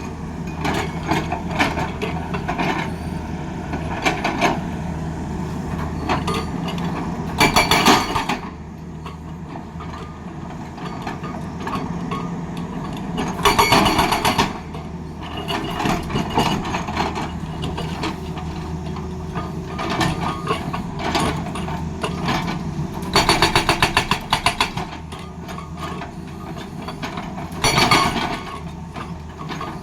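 Tata Hitachi excavator's diesel engine running steadily while its hydraulic breaker hammers in four short bursts of rapid blows, with scattered knocks in between.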